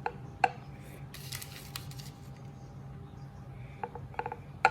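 A serving utensil clinking against a bowl a few times as roasted sweet potatoes are put in, with a brief scraping rustle between the clinks. A low steady hum runs underneath.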